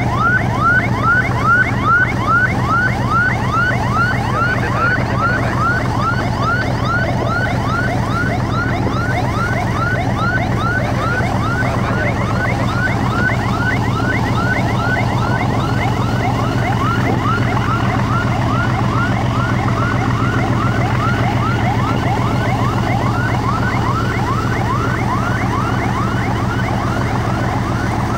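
Boat engine running steadily under way, with a high rising chirp repeating about three times a second over its drone.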